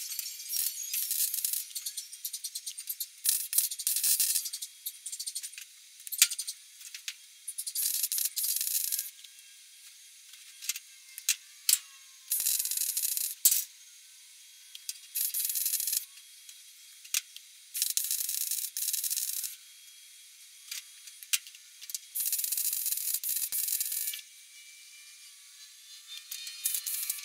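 MIG welder arc crackling in short bursts of one to two seconds, about eight of them with pauses between, as sheet-metal patch panels are stitch-welded in.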